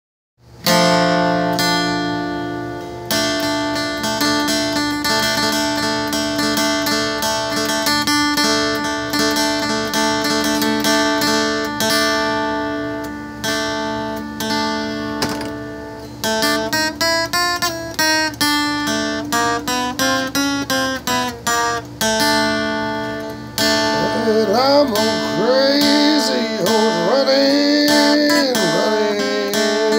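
Acoustic guitar playing blues: strummed chords at first, then quick picked runs from about halfway, and notes bent up and down near the end.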